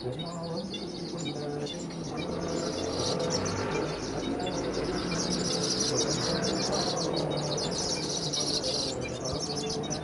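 Weaver birds giving a rapid, high-pitched chirping chatter, densest and loudest from about three to nine seconds in.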